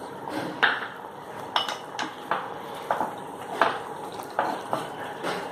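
Spatula stirring chicken in a kadai, scraping and clinking against the pan in about eight irregular strokes.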